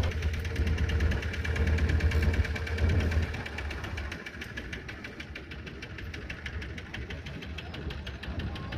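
A small wooden boat's long-tail engine running with a rapid, even knock. Its deep rumble drops away about three seconds in, and it runs on more quietly after that.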